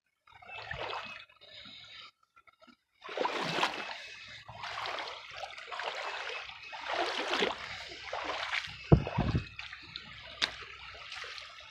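Swift creek water splashing and trickling over rocks in uneven surges, faint and broken for the first few seconds, then fuller. A low thump about nine seconds in.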